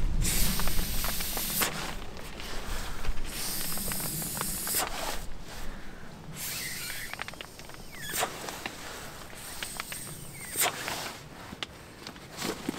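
Air hissing into an inflatable sleeping pad in several spells of one to two seconds, with nylon rustling and small clicks in between.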